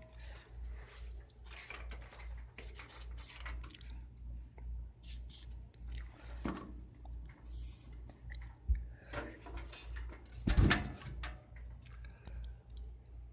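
A small cooling fan, freshly oiled, running with a low hum that pulses about twice a second. Handling clicks and knocks sound over it, with two sharper knocks in the second half.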